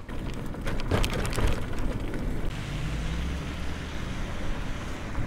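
Electric moped's tyres hissing on wet pavement as it rides, with a few sharp clicks in the first second or so and a faint low hum in the middle.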